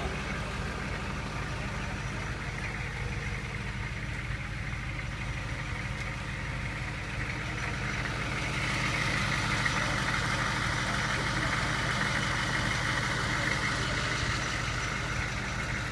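Vintage military vehicle engine running steadily, growing louder about halfway through.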